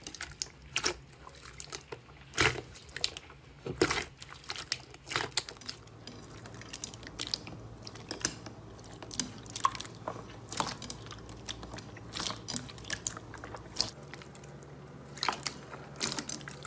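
Hands pressing, poking and kneading slime in a bowl: irregular sticky pops, clicks and squelches as the slime is squeezed and pulled apart.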